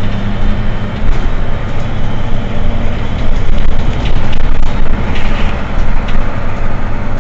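Mercedes-Benz Citaro C2 city bus running: a steady low engine hum under a broad rushing noise, with a few short rattles about four to six seconds in.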